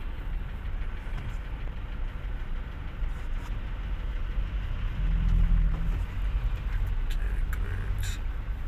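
Low, steady engine and road rumble heard from inside a car creeping along in slow traffic, swelling louder for about a second halfway through. A few faint clicks near the end.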